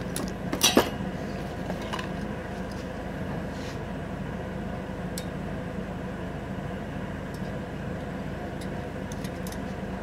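Metal cover plate with die-ground holes being handled, giving light clinks and taps, with one louder clank under a second in. A steady low hum runs underneath.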